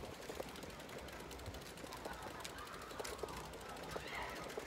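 Footsteps on a tarmac path at a steady walking pace, over a faint outdoor background with a few wavering calls, about two and four seconds in.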